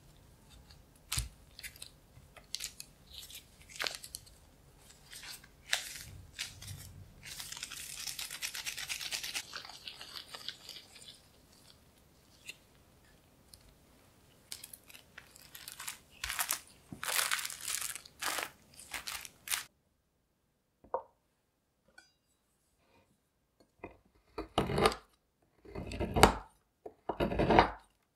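Crinkling and rustling of plastic food gloves and parchment paper as cream cheese truffle mixture is rolled into balls by hand. Near the end, a knife shaving a block of dark chocolate on a wooden cutting board makes repeated scraping strokes, a little under two a second.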